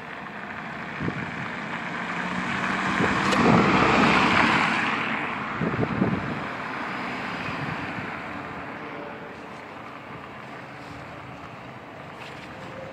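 A car driving past on the road, its tyre and engine noise swelling to a peak about four seconds in and then fading away.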